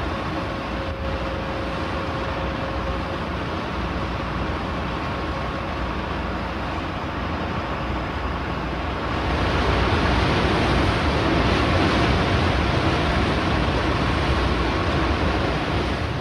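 Steady rushing of wind and sea at open water, with a low rumble underneath, growing louder about nine seconds in.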